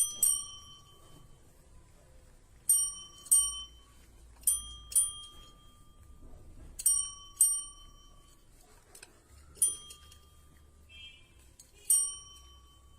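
A small metal bell rung over and over with sharp dings, mostly in quick pairs about half a second apart, each ringing on briefly. Near the end there is a softer jingle.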